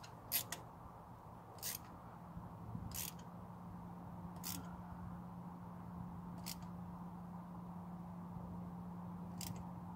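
Light metal clicks and taps, a few seconds apart, as a spark plug on its socket and extension is lowered and threaded by hand into the 2.0 L turbo four-cylinder's head. A faint steady low hum sets in after a couple of seconds.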